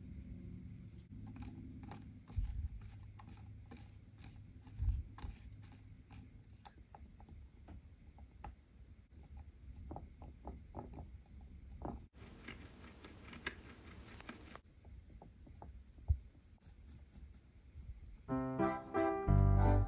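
Small clicks and taps of tiny miniature-kitchen utensils and dough being handled on a wooden board, with a rustling scrape lasting about two seconds about twelve seconds in. Piano music comes in near the end.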